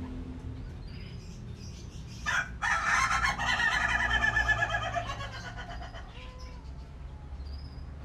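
White-breasted waterhen giving a harsh, rapidly pulsing call about two and a half seconds long, opened by a short scratchy note and sagging in pitch at its end.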